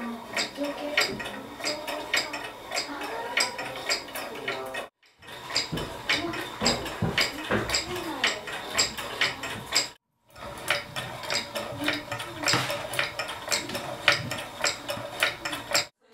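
Hand-cranked wooden cam automaton at work: turning the crank spins a shaft of wooden cams that lift and drop wooden follower rods, giving a quick, uneven run of wooden clicks and knocks. It breaks off briefly twice, about five and ten seconds in.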